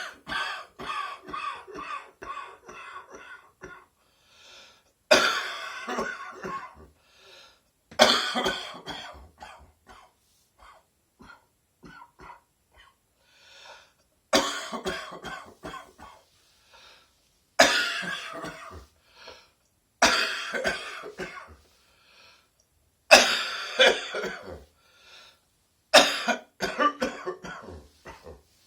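A person's chesty morning cough: about eight fits of coughing a few seconds apart, each opening with a hard cough and trailing off into a run of smaller ones, with throat clearing.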